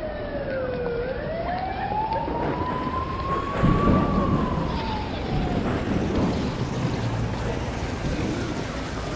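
Emergency-vehicle siren wailing: one slow wail that falls, rises over about three seconds, then falls again. A low rumble comes about four seconds in.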